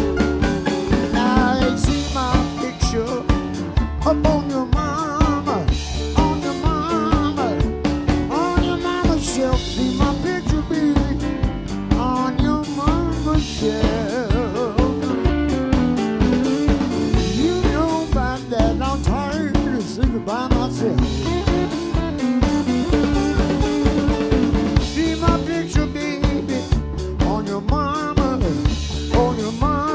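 A live blues band playing: electric slide guitar over organ and bass guitar, with a drum kit keeping a steady beat.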